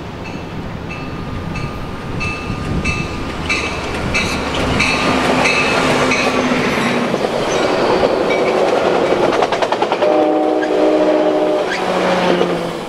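A diesel-hauled commuter train passing close by. A bell rings in even strokes a little under two a second as the train approaches. The bilevel cars then rush past with a rattling clatter of wheels, and a horn chord sounds for about two seconds near the end.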